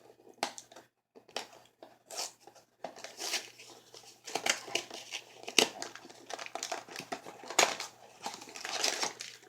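Small plastic candy bag crinkling in irregular crackly bursts as it is handled and torn open.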